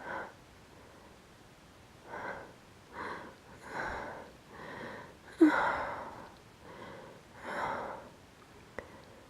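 A woman's pre-sneeze hitching: about eight sharp, breathy gasps, one after another, the loudest about halfway through, as a pepper-irritated nose builds toward a sneeze that she is holding back.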